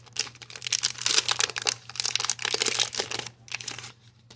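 Plastic wrapper of a Panini Contenders football card pack crinkling and tearing as it is opened by hand, a dense run of crackles that stops shortly before the end.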